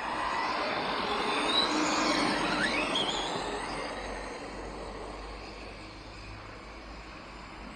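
Radio-controlled trucks running on a dirt track: rising and falling motor whine over a rushing noise, loudest as they pass close about two seconds in, then fading away.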